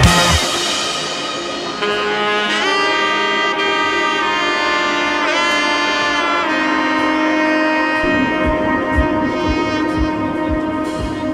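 Background music: a slow melody of long held notes, with a low steady beat coming in about eight seconds in.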